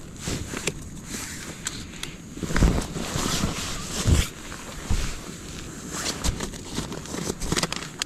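Gusts of wind buffeting the microphone, with irregular rustling and crunching clicks; the loudest gusts come about two and a half and four seconds in.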